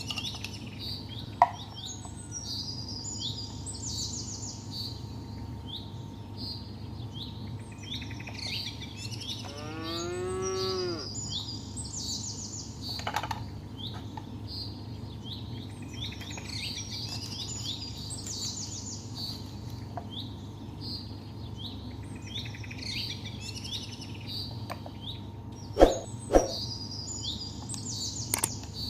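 Small birds chirping and singing throughout. A cow moos once, a single rising-and-falling call about ten seconds in, and a few sharp knocks sound, the loudest a pair near the end.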